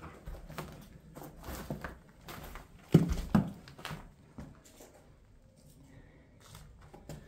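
Footsteps and shuffling on a debris-strewn old floor, a series of small knocks and crunches, with two louder thumps about three seconds in.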